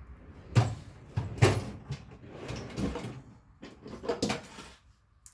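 A series of knocks and clunks from tools and objects being handled in the work area, loudest about half a second and a second and a half in.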